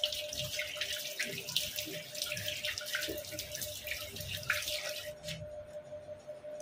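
Tap water running and splashing as a face is washed with cupped hands at a sink, stopping about five seconds in.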